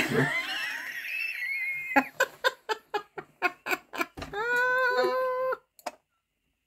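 A woman squealing and laughing: first a high, wavering squeal, then a quick run of short laughs, then a long, held high-pitched cry.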